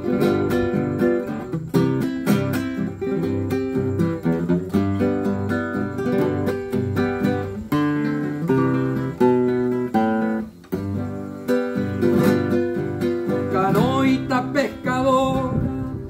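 Nylon-string classical guitar played solo in an instrumental passage of plucked melody and chords. A man's singing voice comes in near the end.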